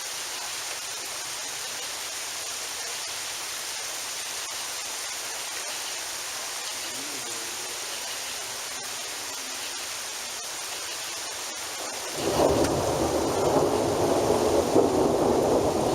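Steady rain hissing, then about three-quarters of the way in a loud rumble of thunder breaks in and keeps rolling over the rain.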